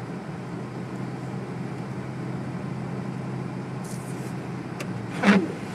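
Steady drone inside a moving car's cabin: engine and road noise with the heater fan running. Near the end, a short, loud sound falls quickly in pitch.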